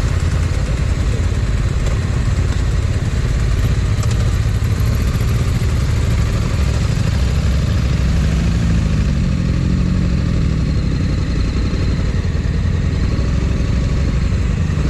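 Motorcycle engine and wind noise while riding, steady and loud. An engine note wavers up and down about eight to eleven seconds in.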